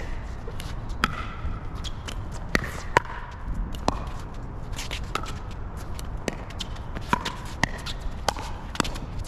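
Pickleball rally: a dozen or so sharp pops of paddles striking the plastic ball, spaced roughly a second apart, some with a brief ringing note, between lighter ticks. Wind rumbles low on the microphone throughout.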